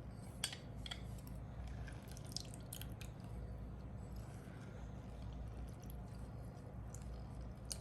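Half a lemon being squeezed by hand: faint squelches and drips of juice, with a few small clicks scattered through.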